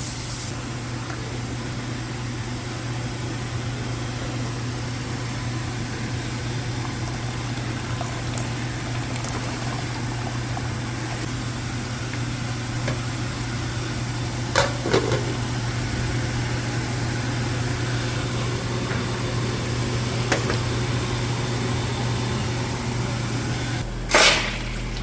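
Steady low kitchen hum with a light hiss, broken by a few sharp knocks about fifteen and twenty seconds in and a louder clatter near the end.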